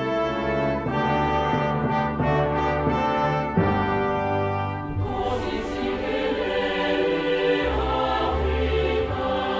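Orchestral music with brass playing sustained chords, joined about halfway through by a choir singing.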